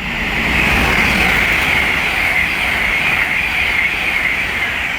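LNER Class 801 Azuma passenger train passing through: a loud rush of wheel and air noise with a strong high hiss, building over the first second and easing off near the end.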